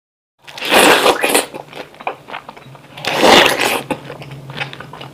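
Close-miked bites into a juicy whole peeled pineapple coated in thick sauce, with wet crunching and chewing. There are two loud bites, one about half a second in and another about three seconds in, with quieter wet chewing between them.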